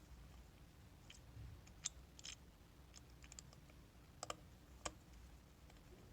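Faint, irregular clicks and ticks of a screwdriver turning out the small screw on a transfer pump's pressure-switch cover, with a few sharper clicks about two seconds in and near the five-second mark.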